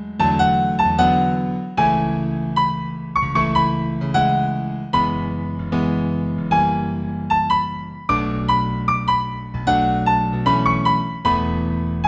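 New age instrumental in A major in a piano tone: a melody of struck notes that ring and fade, over low held chords.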